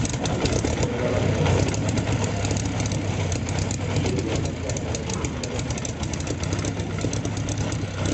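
Rolls-Royce Griffon Mk58 36.7-litre V12 aero engine running steadily just after a cold start, driving its contra-rotating propellers.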